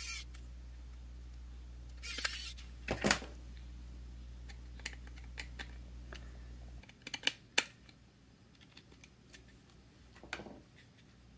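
Small screwdriver driving screws back into a multimeter's circuit board and plastic case: scattered light clicks, ticks and short scrapes of handling. A steady low hum underneath stops about seven seconds in.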